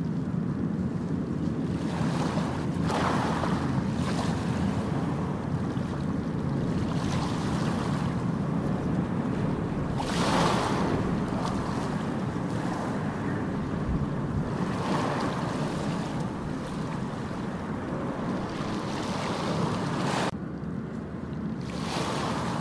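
Steady rushing noise that swells every few seconds, like surf washing in, with an abrupt change about twenty seconds in where the higher part of the sound cuts out.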